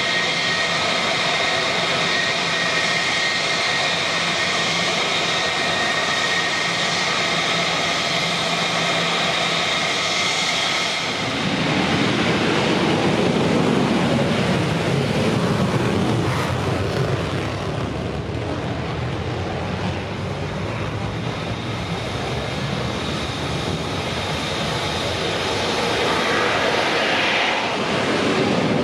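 F-16 fighter's jet engine whining steadily at taxi power, several high tones held level. About eleven seconds in the whine gives way to a broad, deeper rushing jet noise that swells again near the end as an F-16 starts its takeoff run.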